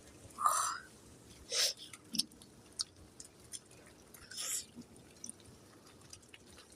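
A ripe, very juicy Belle of Georgia peach being bitten and slurped: a few short wet slurps and smacks, the loudest about half a second in and another near the middle, with small clicks between.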